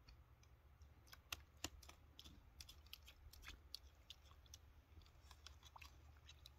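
Cat pawing at ice in a shallow plastic tray of water: faint, irregular clicks and knocks of ice against the plastic, with two sharper knocks about a second and a half in.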